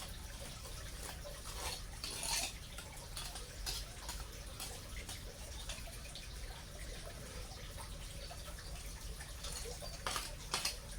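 Scattered soft rustles and snaps of grass and weeds being pulled up by hand, a few stronger ones about two seconds in and again near the end, over a faint steady low hum.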